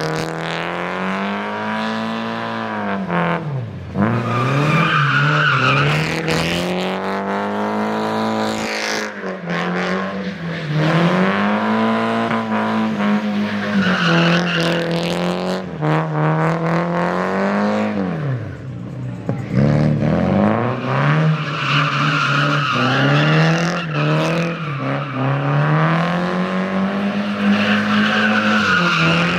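A car engine revving hard and held high, its revs swinging up and down again and again, with tyres squealing as the car slides. The revs drop sharply and climb back twice, about 4 seconds and 19 seconds in.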